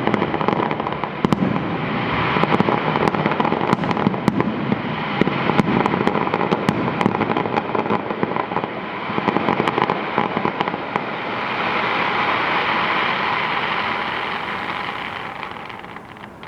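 Fireworks going off in a dense run of sharp cracks and pops over continuous crackling. Near the end it thins to a steady crackle that fades away.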